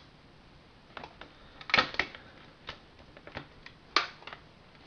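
Scattered sharp clicks and knocks, about eight in all, from the parts of a Commodore 1530 Datasette being handled during reassembly. The loudest come a little under two seconds in and at about four seconds.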